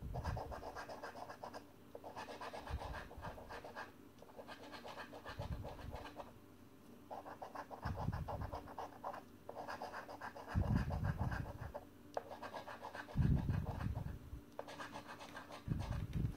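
A £2 coin scratching the latex coating off a paper scratchcard: quick back-and-forth scraping strokes in bouts of one to two seconds, with short pauses between. Soft low bumps come now and then as the hand presses on the card.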